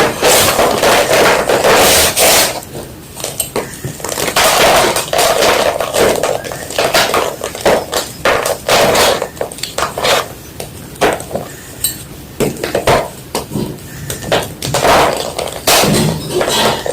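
A block of white gym chalk being crunched and crushed close up, in dense runs of sharp, crumbly crackles with short pauses between them.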